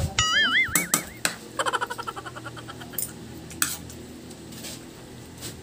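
Metal spoon clinking and scraping against ceramic plates and a bowl during eating, several separate clinks. Near the start a loud, high warbling trill lasts about a second, followed by a quick run of rapid chirps.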